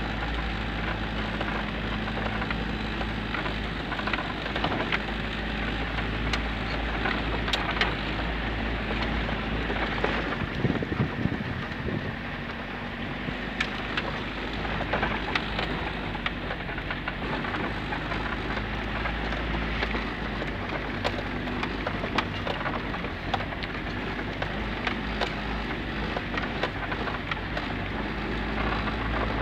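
Toyota Land Cruiser LJ73 driving over a rutted dirt track, heard from inside the cab: the diesel engine runs steadily under a constant rattling and knocking of the body and hardtop over the bumps, thickest about a third of the way in.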